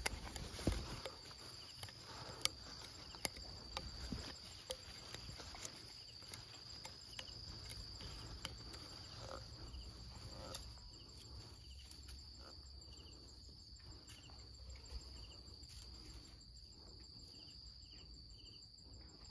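Insects shrilling in one steady high drone, with a few faint sharp clicks in the first few seconds.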